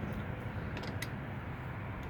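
Steady low background noise with a few light clicks about a second in.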